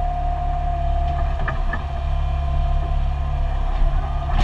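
Compact excavator's diesel engine running under working load, heard from inside the cab, with a steady whine over its low rumble. A few short clanks about one and a half seconds in and a knock near the end as the machine swings and works.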